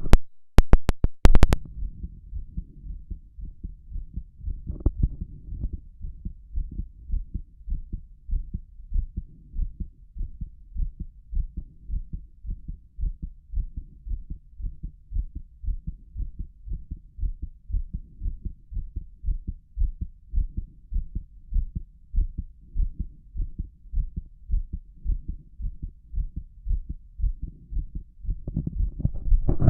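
A man's heartbeat heard through a stethoscope: an even, quick run of low thuds. About a second in come a few sharp knocks, as the chest piece is handled against the skin.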